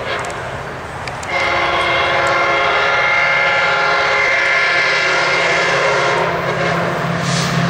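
Approaching MARC diesel commuter locomotive sounding its horn for a grade crossing: one long steady blast starting about a second in and lasting about five seconds, then another blast starting at the very end, as the low engine rumble grows louder.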